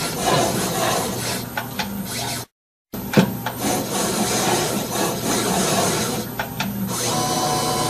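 Roland EGX-30A desktop engraver cutting into a brass or aluminium nameplate, the cutter making a steady scraping, rasping noise. The sound cuts out for a moment about two and a half seconds in and then resumes. Near the end it gives way to a steady hum.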